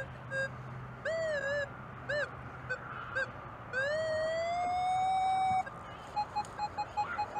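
Nokta Double Score metal detector sounding target tones as the coil passes over a buried target that reads 44 and is iffy among trash: short beeps and warbling tones, then a tone that rises in pitch and holds for about two seconds, then a quick run of short even beeps near the end.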